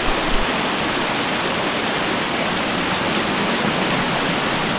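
Rainwater rushing down a flight of steps in a strong, steady flow.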